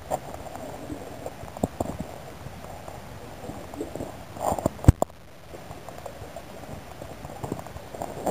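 Underwater handling noise from a diver's camera housing: a muffled rumble of water moving past it, with scattered taps and a sharp knock about five seconds in.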